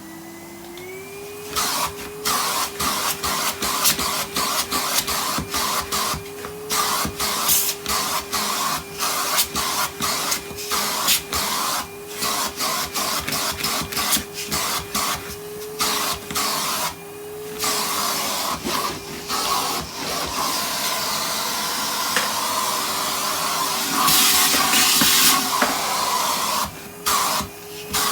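Vacuum cleaner running and sucking dirt through a hose, its motor tone rising slightly about a second in and then holding, with the sound breaking up in many brief dips.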